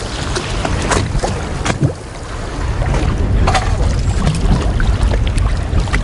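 Wind buffeting the microphone over water lapping and slapping against a small boat's hull, with a few short splashes.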